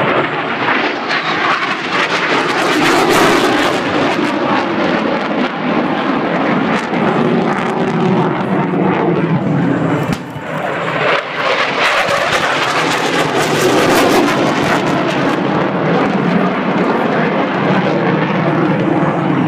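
Fighter jet engines roaring loudly as the jets fly low attack passes. The roar eases briefly about halfway through, then builds again with the next pass.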